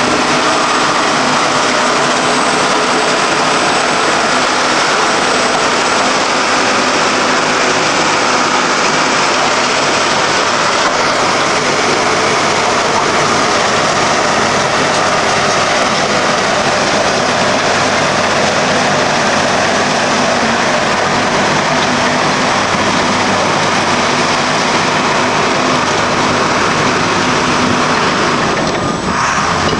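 John Deere 750C crawler dozer running steadily, a loud continuous diesel engine and machine noise that hardly changes until a slight dip near the end.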